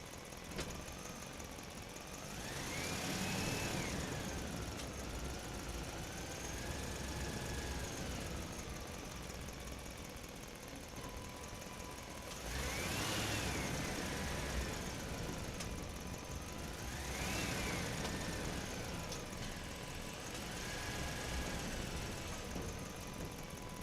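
Radio-controlled truck running, its motor whine rising in pitch and falling again about four times as it speeds up and slows, over a steady mechanical hum.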